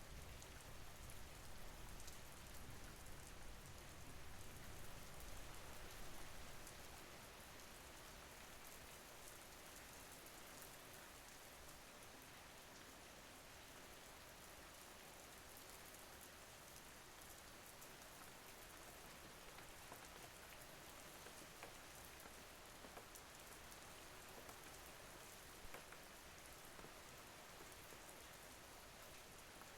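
Faint, steady rain falling, an even patter with scattered drop ticks. A low rumble under it dies away about six or seven seconds in.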